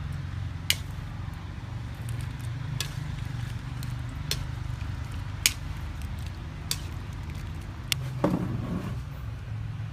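Sharp clicks at intervals of about a second over a steady low rumble, while soup is ladled from a steaming pot over a fire. A dull knock comes near the end.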